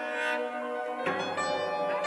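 Cello and piano playing contemporary chamber music together: held bowed cello tones blend with sustained piano notes, and a new note or chord comes in sharply about a second in.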